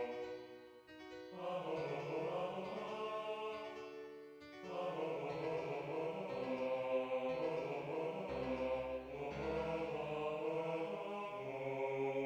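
Notation-software playback of a score: a synthesized choir-like voice plays the vocal melody over sampled piano chords, in phrases with short breaks between them, ending on a long held chord.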